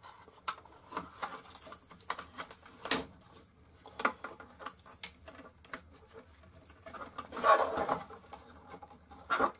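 Plastic electronics enclosure being handled: scattered clicks, knocks and light rustles as its panels and lid are fitted and its mains cable is moved, with a louder clatter about seven and a half seconds in.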